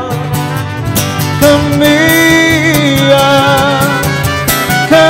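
Live acoustic music: a man sings in Italian into a microphone, repeating the word "cammina" in long held notes with a light vibrato. An acoustic guitar accompanies him, and a trumpet plays along.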